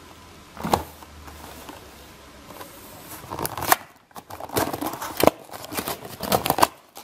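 Packaging being handled and opened by hand: one sharp click under a second in, then a run of irregular crackles, rustles and clicks in the second half.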